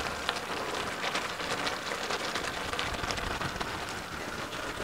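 Thick beef stew simmering in the pot: a steady crackle and patter of many small bubbles sputtering.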